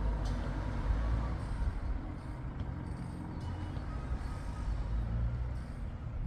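Outdoor street ambience: a steady low rumble, like traffic on nearby roads.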